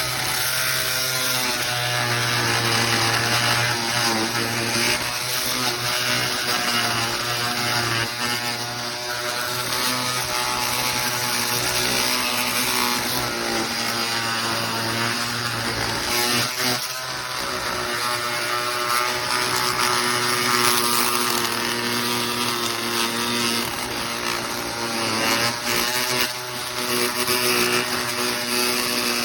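Dremel Multi-Max MM50 oscillating multi-tool running continuously with a steady buzz that wavers slightly in pitch and dips briefly about halfway through.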